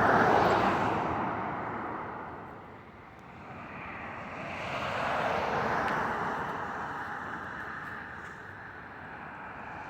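Vehicles going by: one fades away over the first few seconds, another swells past about five or six seconds in and fades, and a third is approaching near the end.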